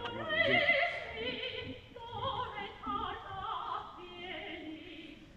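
Operatic singing with wide vibrato from a woman's voice, accompanied by the opera orchestra, heard from out in the auditorium.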